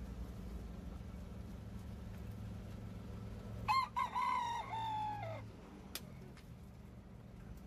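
A gamecock rooster crows once, a call of under two seconds that drops in pitch at the end. A single sharp click follows, over a low steady hum.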